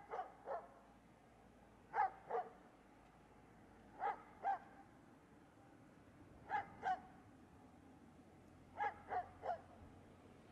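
Dog barking in short runs of two or three barks, a run about every two seconds.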